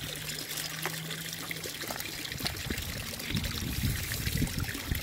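Water trickling steadily into a backyard turtle pond, with a few low thuds in the second half.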